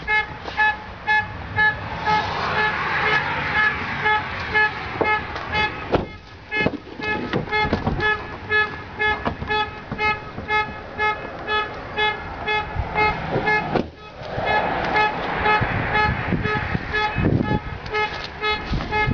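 The 2010 GMC Sierra 2500 HD's warning chime, a steady rapid string of identical electronic dings, as with a door standing open. There are two spells of rushing noise and a few light knocks.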